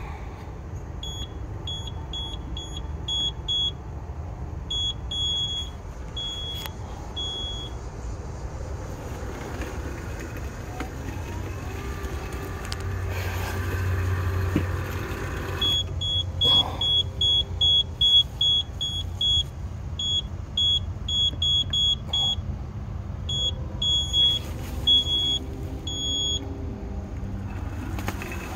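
Yoleny robotic lawn mower beeping: runs of short, high electronic beeps at uneven spacing, some held a little longer, in two spells, over a steady low rumble.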